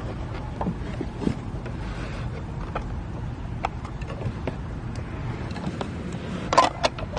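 Handling noise from the plastic RC bait boat: scattered light clicks and knocks, with a louder clatter about six and a half seconds in, over a steady low rumble.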